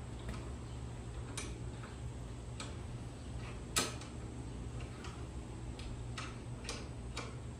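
Scattered light metal clicks and taps as a steel blade slab is handled and set in a bench vise, with one louder click nearly four seconds in, over a low steady hum.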